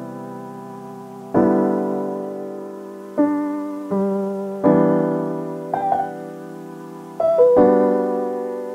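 Background music of piano chords, struck every second or two and each ringing out and fading, with a few quick higher notes in the second half.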